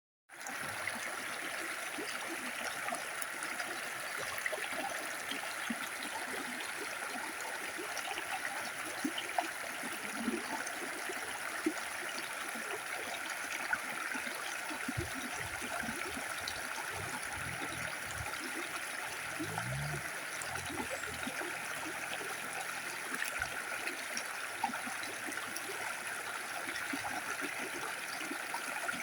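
A stream of water flowing steadily: a constant rush with small splashes scattered through it.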